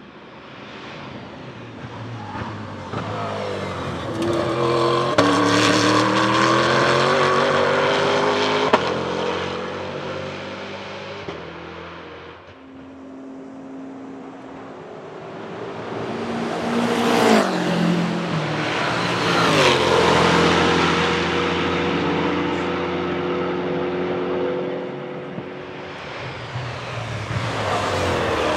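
Scuderia Cameron Glickenhaus SCG 004C race car's 6.2-litre V8, developed from a GM LT4 pushrod engine, at racing speed on track. It pulls up through the gears in rising steps, loudest in the first half. It comes back louder again about two-thirds of the way in, with a quick drop in pitch as it passes by.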